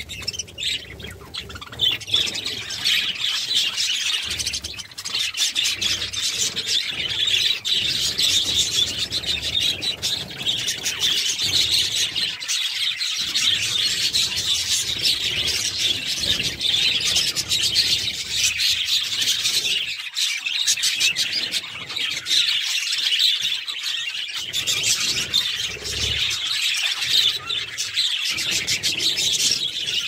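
A flock of budgerigars chattering without a break, many birds chirping at once in a dense twittering.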